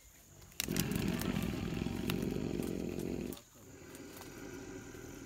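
Immobilized young Sri Lankan elephant (tusker) breathing with a loud rasping rumble, about three seconds long, followed by a softer rasping breath.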